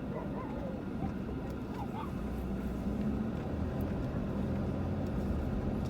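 Vehicle engine running steadily at low speed, with a continuous low drone, while driving over a bumpy dirt track.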